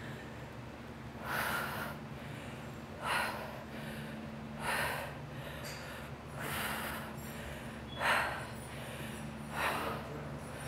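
A woman breathing out hard with the effort of dumbbell reverse lunges: six short, forceful exhalations about a second and a half apart.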